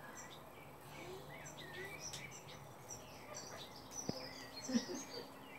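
Mandarin ducklings peeping: many short, high, quick chirps with bending pitch. There is a sharp tap about four seconds in and a brief low thump just after.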